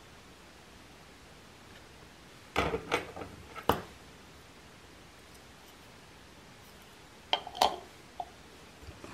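Small metal scissors handled on a hard surface: a quick cluster of light clicks and knocks, then two more sharp clicks about four seconds later.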